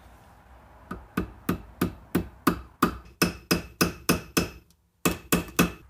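A hammer tapping a steel punch to drive the shift-fork shaft into the Toyota 8-inch e-locker's differential housing. It lands a steady run of sharp metallic strikes, about three a second, then a short pause and four quicker taps near the end.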